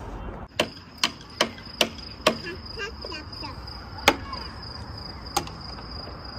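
A cricket chirring in one steady high trill. Seven sharp knocks at uneven intervals stand out above it, the loudest sounds here, with faint distant voices in between.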